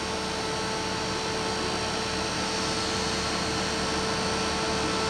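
Steady noise inside a vehicle: an even hiss with a constant humming tone.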